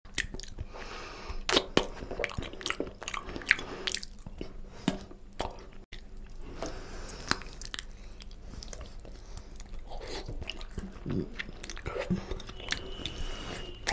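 Close-miked chewing of mutton paya curry with rice: mouth smacks and many irregular sharp clicks as goat trotters and rice are bitten and chewed.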